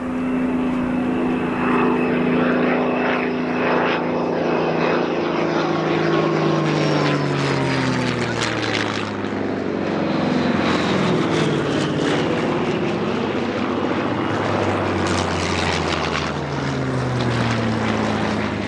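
Piston-engined WWII propeller warbird flying past, its engine note falling in pitch as it goes by. The pitch drops again near the end as an aircraft passes once more.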